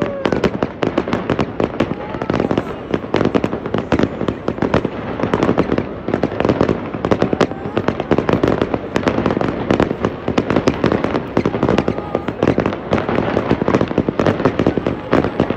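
Aerial fireworks going off in a dense barrage: many bangs and crackles overlapping, several a second, with no let-up.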